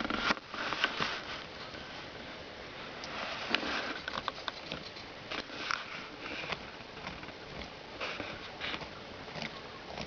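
Wombat digging into dry, loose soil: an irregular run of claw scrapes and short scratchy bursts as dirt is dug out and flung back, pattering down.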